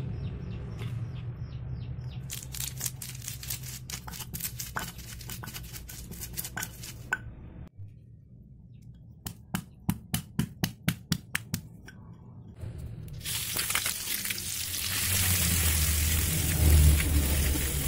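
Green chilies and spice paste pounded in a stone mortar with a stone pestle (cobek and ulekan): a run of knocks and grinds, then after a short gap about a dozen sharp strikes, roughly five a second. About thirteen seconds in, the paste frying in an aluminium wok gives a steady sizzle as it is stirred.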